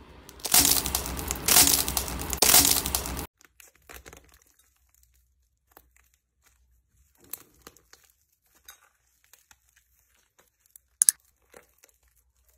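An eggshell being crushed in the hand: dense crunching and crackling for about three seconds, with three louder crunches. After that come sparse, faint crackles and clicks as the dried, glittery crust on a mound of slime is broken apart, with one sharp crack near the end.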